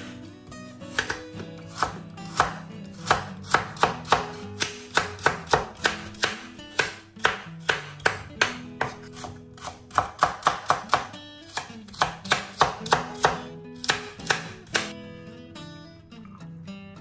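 Chef's knife dicing a carrot on a wooden cutting board: a quick, steady run of sharp knocks, about three a second, that stops about two seconds before the end. Acoustic guitar background music plays underneath.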